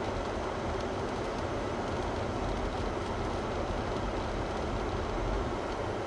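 Snowplow and sander trucks driving along a snow-covered road: a steady, even rumble of heavy truck engines and tyres.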